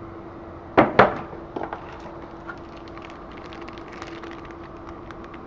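Two sharp knocks about a second in as the packaging is handled, followed by the light crinkling of a clear plastic bag around a packaged USB cable being turned in the hands. A steady hum runs underneath.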